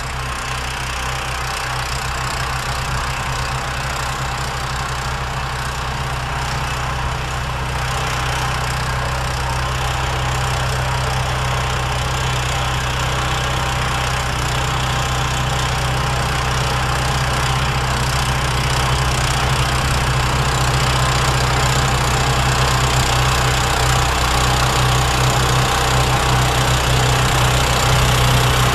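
John Deere 1032 walk-behind snowblower, modified with a 16 hp engine, running steadily under load while it throws snow, growing gradually louder as it comes closer.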